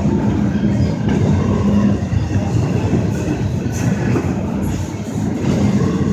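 Freight train's intermodal container cars rolling past close by: a steady, loud rumble of steel wheels on the rails.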